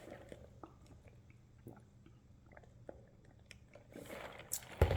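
A person chewing a soft snack with faint wet mouth clicks, followed near the end by a short rustle and a low bump.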